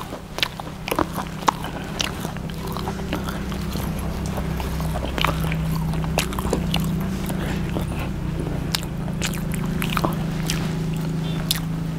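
A person eating chapati with a vegetable dish by hand: chewing with many scattered small clicks and taps as the flatbread is torn and fingers work the plate. A steady low hum runs underneath.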